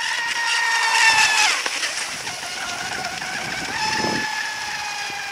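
High-pitched whine of an RC fibreglass mono speed boat's Surpass Rocket 3670 2280kv brushless motor at high throttle as the boat makes a pass, loudest about a second in. The pitch drops about a second and a half in, and the whine comes back up near four seconds.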